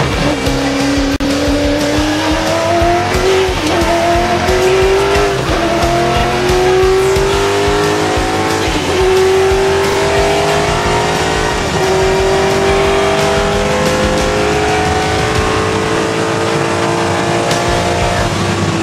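V8 Supercar's V8 engine heard from inside the cabin, accelerating hard through the gears. Its pitch climbs steadily and falls back at each upshift, several times, then drops near the end as it comes off the throttle.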